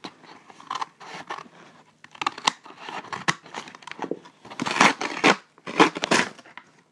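Scissors snipping through a paper mailing package, with the paper crinkling as it is handled; the loudest snips come in the second half.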